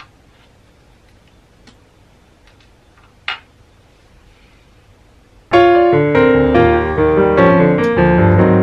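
Faint room tone with a few light clicks and one sharper knock about three seconds in. Then piano music starts suddenly about five and a half seconds in, loud and playing steadily.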